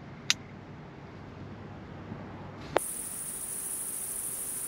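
A faint low hum with a sharp click a third of a second in; near three seconds a second sharp click, then a steady high-pitched chorus of crickets chirring at night.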